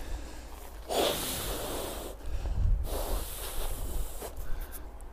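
A man's loud, noisy breaths, several times over, with a low wind rumble on the microphone.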